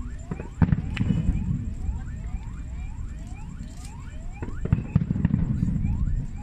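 Aerial fireworks shells bursting: sharp bangs about half a second and a second in, and a quick cluster of them around four and a half to five seconds in, each trailing off in a low rumble. A high rising chirp repeats about twice a second throughout.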